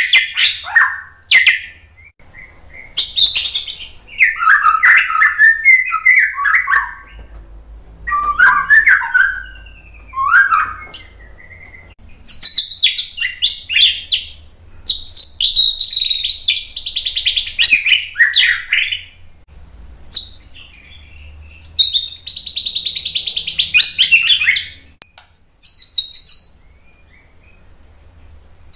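White-rumped shama singing loudly: varied phrases of whistles and rapid trills, each a few seconds long, broken by short pauses.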